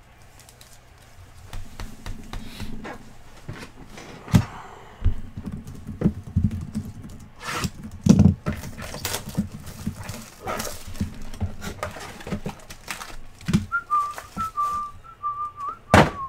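Trading-card boxes, packs and sleeved cards being handled on a table: scattered knocks, thunks and rustles of packaging. Near the end someone whistles a few wavering notes.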